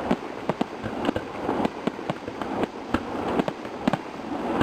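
Fireworks finale: a rapid, irregular barrage of shell bursts, about four bangs a second.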